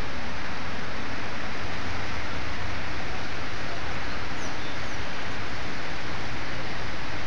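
The flood-swollen St. Croix River rushing through rocky rapids: a steady, even rush of churning water. Two faint, short high chirps come about four and a half seconds in.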